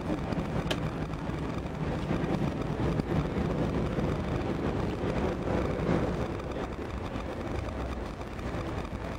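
Steady rumble of a passenger railcar rolling along the track, heard from inside the car, with a few faint clicks.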